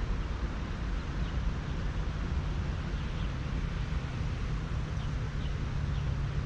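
Steady outdoor background noise with a low rumble, and a few faint short chirps scattered through it.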